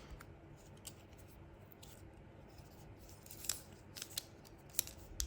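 Faint, scattered light clicks and taps of small phone parts and tools being handled on a work surface, a few sharp ticks over a quiet background.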